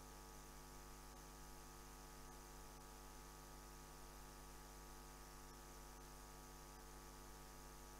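Near silence: a faint, steady electrical mains hum with light hiss on the audio line.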